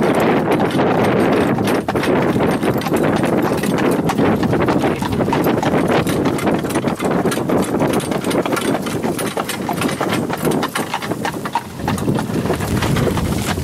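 A horse's hooves clip-clopping in a steady stream of strikes over a constant rushing noise.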